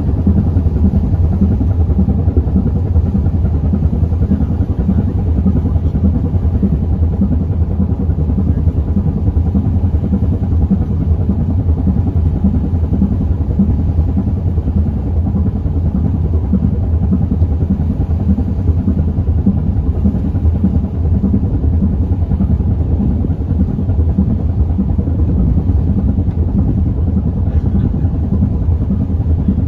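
Ship's diesel engine running steadily: a deep, unbroken drone with a fast, regular throb.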